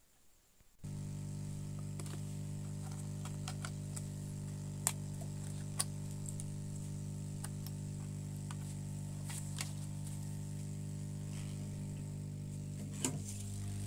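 Hot air rework station's blower switched on about a second in, running with a steady hum and airflow hiss while an SMD resistor is heated off the motherboard. A few light clicks sound over it.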